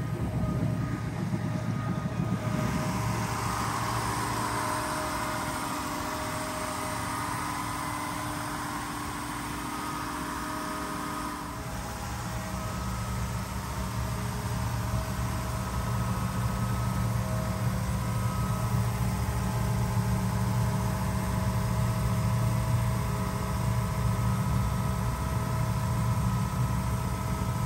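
Mercury inboard boat engine with a sterndrive, running steadily slightly above idle as it warms up after its first start of the season. The sound changes about eleven seconds in, then settles into an even low hum.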